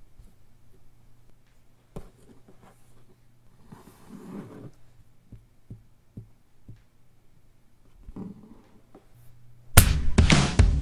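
Quiet room tone with a faint steady hum and a few soft knocks and rustles. Near the end, music starts loudly and suddenly.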